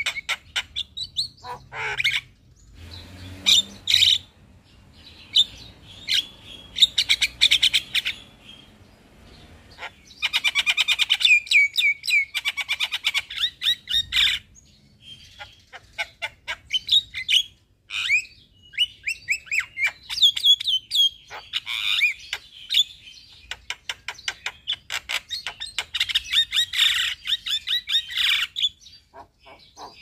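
Javan myna singing: bursts of fast chattering notes mixed with short whistles, broken by brief pauses between phrases.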